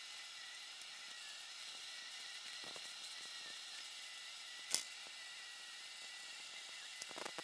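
Quiet workshop room tone with a faint steady high whine, a few faint tool ticks, and one sharp metallic click near the middle from a wrench on the connecting-rod bolts of a BMW airhead boxer engine.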